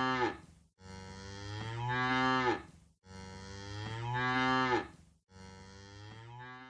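Cow mooing: a series of long, drawn-out moos, each swelling louder before breaking off, about one every two seconds. The last moo is cut off short near the end.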